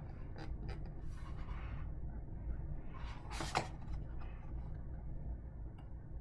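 Soft rustling of paper book pages being turned, with one brief sharper paper noise about three and a half seconds in, over a low steady hum.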